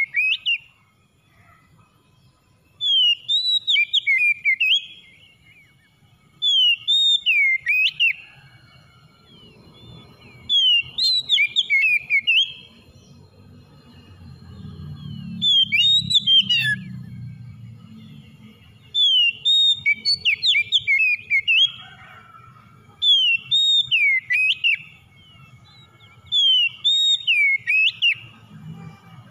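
Oriental magpie-robin singing: short phrases of clear whistled notes that slide up and down, repeated about every four seconds. A low rumble rises and fades in the middle.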